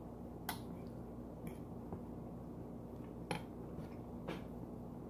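Quiet eating at a table: a fork clicking and scraping on a plate, with four short clicks, over a steady low hum.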